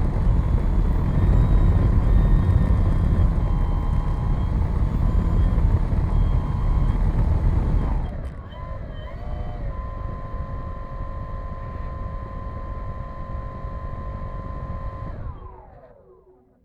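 An RC model airplane's motor heard from an onboard camera: a steady whine under heavy air and rumble noise, which drops away about eight seconds in, leaving a quieter, steady motor whine. Near the end the motor winds down in pitch and stops.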